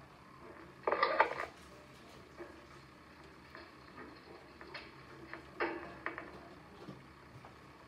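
Rabbits shuffling in straw bedding: a short rustle about a second in and another near six seconds, with faint ticks and scratches between.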